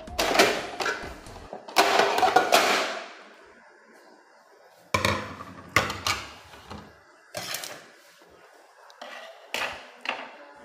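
Dishes clattering and knocking as plastic bowls, china and an enamel tray are handled: a dense run of clatter in the first few seconds, then a handful of separate knocks as a metal spoon and plate are set down and a cupboard shelf is reached into.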